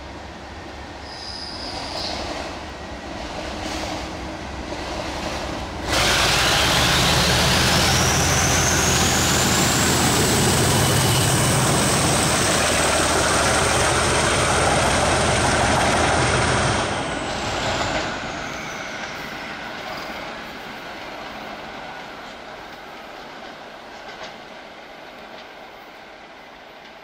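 Colas Rail Class 37 diesel locomotive passing close by. Its engine grows louder on the approach, turns suddenly loud about six seconds in with a high whine that rises quickly and then holds, and fades away from about two-thirds of the way through.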